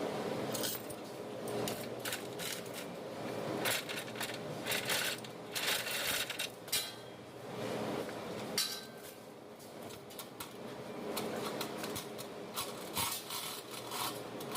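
Metal tools and engine parts clinking and clattering irregularly, as in hand work on an engine.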